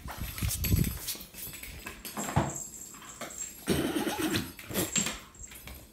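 Irregular knocks, scuffs and rumbling from a handheld phone being swung and carried quickly across a room, with a few louder thumps about two and a half and four seconds in.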